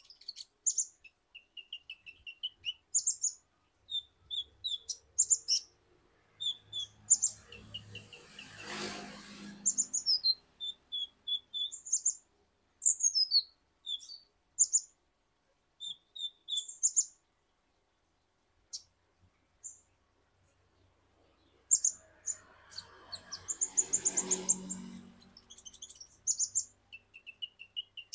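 Male kolibri ninja (purple-throated sunbird) singing in a cage: rapid runs of sharp, high chirps and twittering trills broken by short pauses. Twice a brief rushing noise rises under the song.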